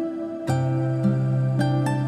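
Background music: a soft, slow instrumental with held notes, a new chord coming in about half a second in and further notes near the end.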